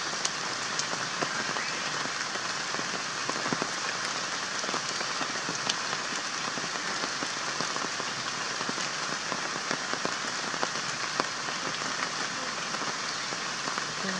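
Steady patter of rain, with many scattered sharper drop ticks.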